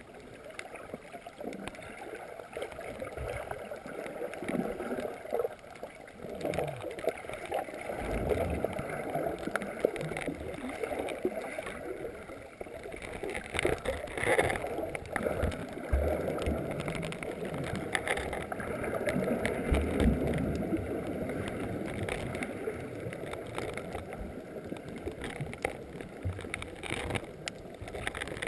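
Muffled underwater water noise picked up through a GoPro's waterproof housing: water surging and gurgling around the camera in rising and falling waves, with a few dull low thumps.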